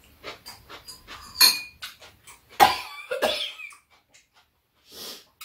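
Eating at the table: metal chopsticks clicking against steel and ceramic dishes, with a louder ringing metallic clink about a second and a half in. A little before three seconds in comes a cough in two rough bursts.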